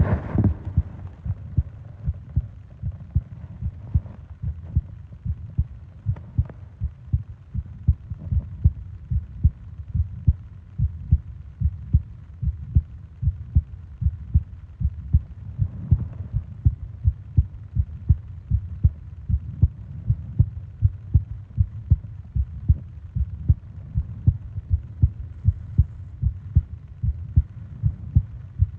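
A person's heartbeat heard close up, a steady, regular train of soft low thumps.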